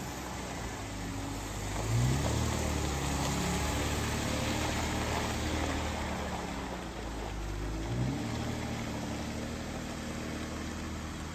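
A motor vehicle engine idling, with two brief revs, about 2 and 8 seconds in.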